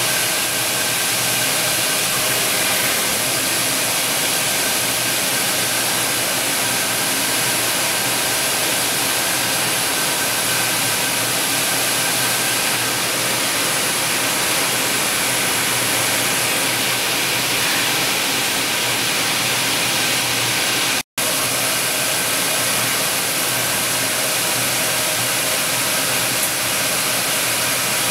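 Steady hiss and hum of a laser cladding cell at work, with a few faint steady whining tones over the noise. The sound drops out for an instant about 21 seconds in.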